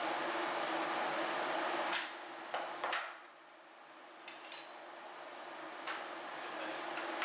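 Several short, sharp metal clicks and clanks from locking pliers and a circular saw being handled during a saw-blade change. Under them is a steady background hum that drops away about three seconds in.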